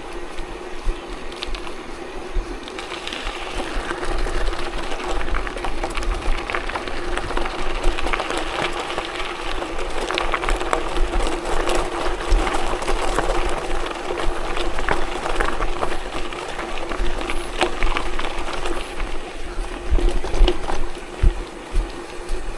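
Wind buffeting the microphone and a steady rattle and crunch of tyres over a rough gravel forest road, with frequent small knocks from bumps.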